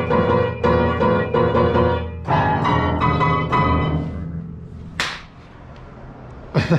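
Piano played as a run of chords struck a few times a second, ringing out and fading about four seconds in. A short hiss follows about a second later.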